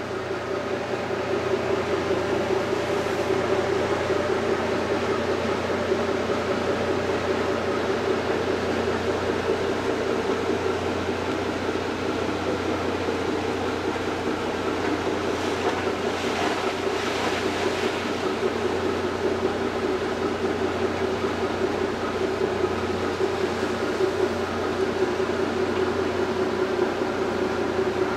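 Cruise ship's engine running steadily underway, a continuous drone with a low hum and a steady mid-pitched tone. It swells over the first couple of seconds.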